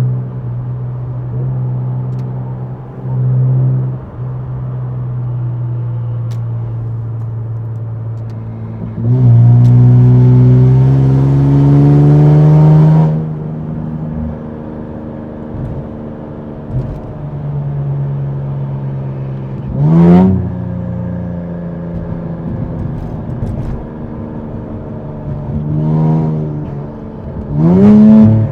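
Infiniti Q60's twin-turbo 3.0 V6 heard from the driver's seat: a steady drone, then a hard pull of about four seconds with rising pitch starting about nine seconds in. Short revs follow about twenty seconds in and twice near the end.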